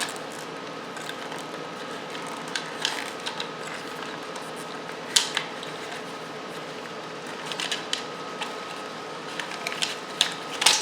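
Scattered small clicks and rustles of wiring-harness connectors and wires being pulled out of a 1971 Honda CB175's headlight bucket, the sharpest click about five seconds in, over a steady low hum.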